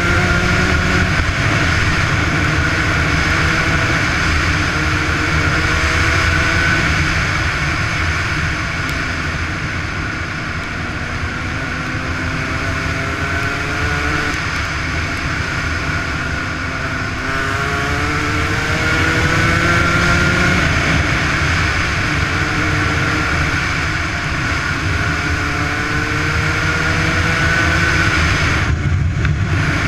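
Yamaha YZ125 two-stroke single-cylinder motocross engine revving up again and again as the bike accelerates, its pitch climbing, dropping back and climbing once more. Heavy wind noise on the helmet-mounted microphone runs under the engine.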